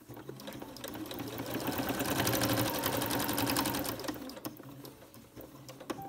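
Computerised electric sewing machine stitching a binding onto linen fabric: a fast, even run of needle strokes that starts at once, builds to full speed, and slows again over the last couple of seconds.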